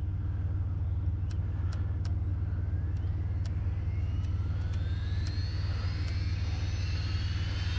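Brushless electric motor of an Arrma Vendetta RC car on a full-throttle 3S speed pass, its high-pitched whine climbing steadily in pitch as the car gathers speed, over a steady low rumble. A few sharp ticks are heard in the first half.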